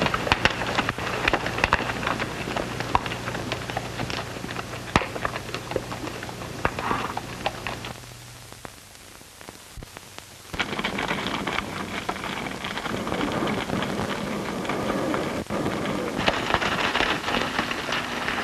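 Steady crackling hiss, like rain, with many scattered sharp clicks and a low hum that drops out about halfway. After that comes a quieter gap of about two seconds, and then the crackling returns.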